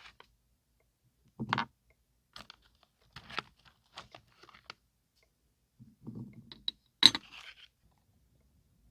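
Close-up desk sounds of scrapbooking: irregular knocks and taps of small objects set down on a desk, and a soft rustle of paper. A heavier knock comes about one and a half seconds in, and the loudest, sharpest click comes near the end, followed by a brief crinkle.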